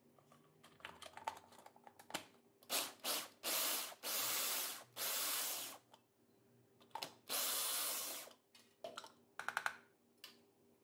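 Small electric food chopper pulsed to chop onion: a few short bursts, then longer runs of about a second each, with the blades and onion pieces rattling in the plastic bowl. Clicks of the motor top and bowl being handled come before and after the runs.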